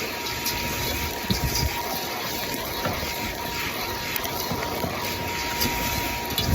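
Cacao winnower running on roasted, cracked cacao beans: a steady rush of air from its fan with a thin, steady whine, and light ticks of nibs and shells rattling through.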